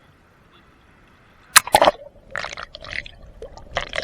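Seawater splashing and sloshing right at the microphone, muffled at first, then a couple of sharp, loud splashes about a second and a half in, followed by more splashing near the end.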